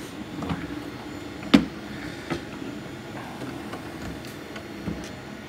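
Handling of a small diecast metal model car inside a diecast toy truck's cargo box: one sharp knock about a second and a half in and a few lighter clicks, over a steady low hum.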